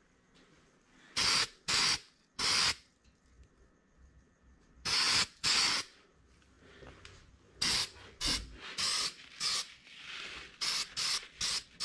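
Aerosol spray paint can sprayed in short bursts, about a dozen hisses of under half a second each. They come in clusters, three, then two, then a quicker run toward the end.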